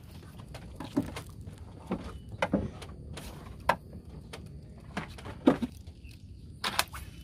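Scattered sharp clicks and knocks at irregular intervals, the loudest about five and a half seconds in, over a light low rumble: handling noise from a spinning rod and reel being worked aboard a small wooden boat.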